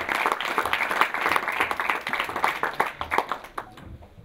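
Audience and athletes applauding with dense hand clapping that dies away near the end.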